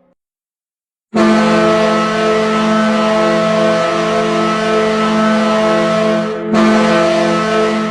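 NHL arena goal horn sounding a loud, steady, long blast that starts about a second in, breaks off briefly near the end and sounds again.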